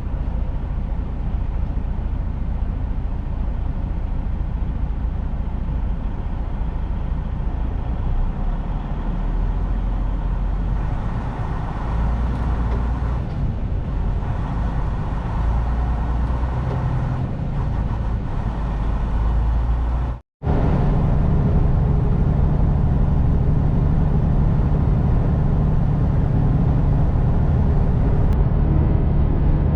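Semi-truck driving on the highway: a steady drone of engine and road noise. It cuts out for a split second about twenty seconds in, then carries on with a steadier low hum.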